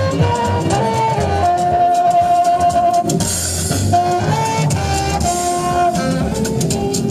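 Saxophone playing a melody of held notes that step up and down, including one long held note, over a backing drum beat.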